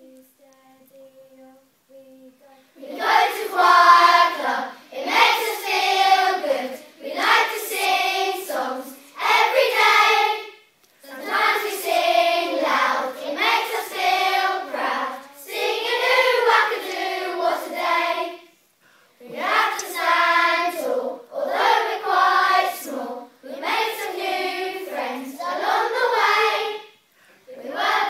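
Primary school children's choir singing, starting about three seconds in after a faint held tone, in phrases a second or two long with short breaks between them.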